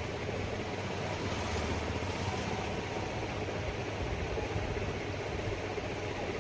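Steady low hum under an even background hiss, with no distinct events.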